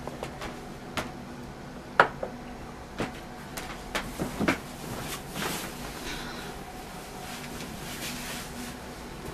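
A series of sharp knocks and clicks, about one a second, with several close together about four seconds in, over a faint steady hum.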